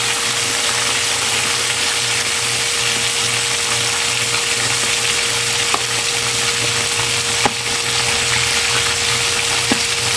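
Milkfish pieces frying in hot oil in a wok: a steady sizzle. Three short clicks in the second half as tongs knock against the wok while turning the fish.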